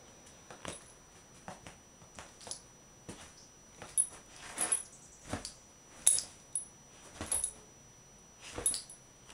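An English Bull Terrier puppy moving about at play, with irregular short jingling clinks and soft scuffles every second or so.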